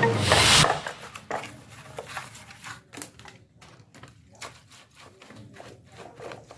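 A short loud whoosh of noise, then light, irregular clicks and taps, several a second, in a small room.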